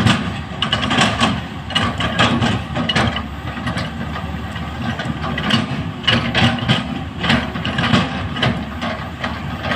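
Komatsu PC-series hydraulic excavator working: its diesel engine runs steadily, with frequent clanks and knocks from the machine's moving parts.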